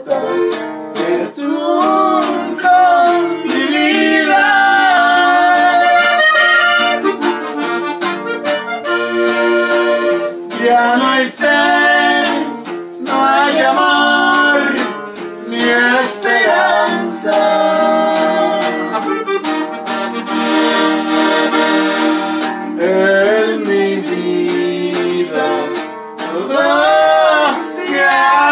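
Norteño-style music on a red Gabbanelli button accordion, played with a strummed guitar, and a man's voice singing along at points.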